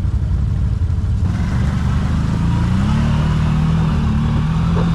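CFMoto CForce 1000 ATV's V-twin engine revving as the quad pulls away up a muddy trail. The engine gets louder about a second in, and its pitch climbs and holds higher from about halfway through.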